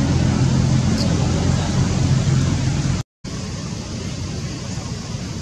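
Steady background noise with a low, engine-like hum under a hiss, like distant traffic. It cuts out completely for a moment about three seconds in, then resumes slightly quieter.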